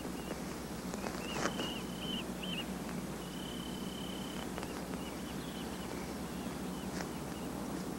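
Faint outdoor nature ambience with thin, high-pitched animal calls: a few short wavering notes, then one held note lasting about a second, over a soft steady hiss.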